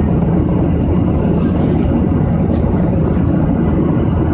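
Steady jet-engine and airflow noise heard inside an airliner's cabin in flight, a constant low rumble without change.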